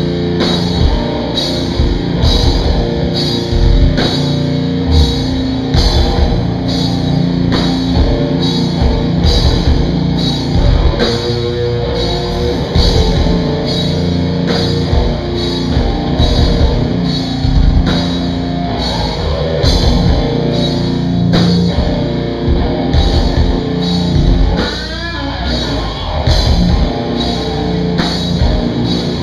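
Live heavy metal band playing an instrumental passage: distorted electric guitars and bass over a drum kit, with cymbal hits keeping a steady beat about twice a second. About 25 s in, a guitar bends and wavers in pitch.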